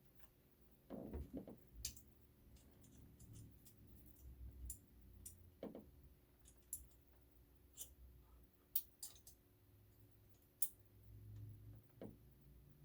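Faint, scattered small clicks and a few soft knocks over a low steady hum.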